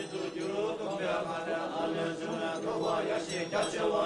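Tibetan Buddhist monks chanting together: a low, steady drone of many voices holding their tones.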